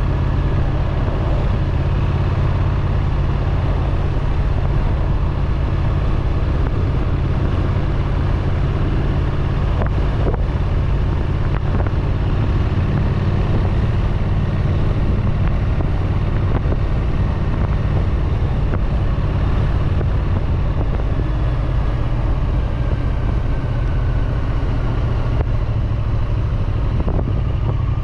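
Triumph Street Twin's parallel-twin engine and exhaust running steadily under way, holding an even pace with no sharp revving.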